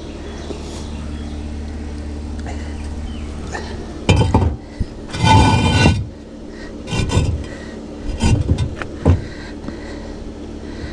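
Hollow concrete blocks being handled and set in place. There are knocks about four seconds in, a grinding scrape of block on block about a second later, then several lighter knocks. A steady low hum runs underneath.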